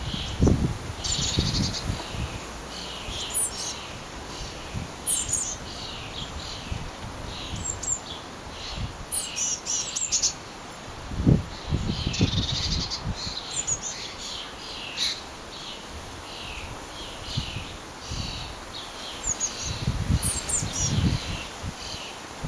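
Blue tits calling: a steady stream of short, high chirps and calls. Wind gusts rumble on the microphone now and then, loudest about halfway through.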